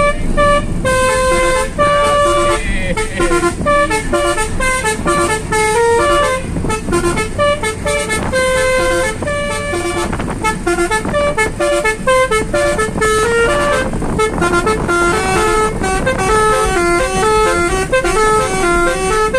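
Basuri musical air horn playing a quick melody of short, stepped notes, heard from inside the car's cabin over a steady low rumble of the moving car.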